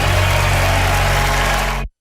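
Show bumper music holding a steady low drone under a dense wash of sound, cut off abruptly near the end.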